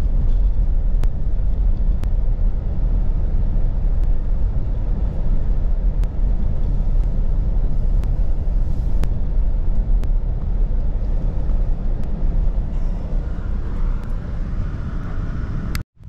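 Car driving on a dirt road, heard from inside the cabin: a steady, loud low rumble of tyres and engine that cuts off suddenly near the end.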